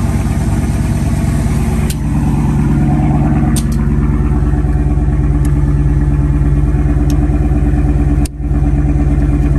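Car engine idling steadily just after a cold start on jumper cables, with a few light clicks over it.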